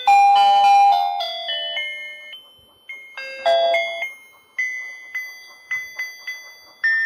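Simple electronic chime melody from a toy fishing game's sound chip: clear beeping notes that each start sharply and fade, like a doorbell, thick and fast in the first second, then single notes about every half second.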